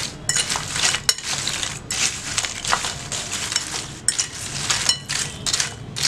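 Crisp fried nacho chips rattling and crunching against each other as they are tossed with a metal fork in a bowl to coat them in chaat masala, with the fork now and then clinking on the bowl.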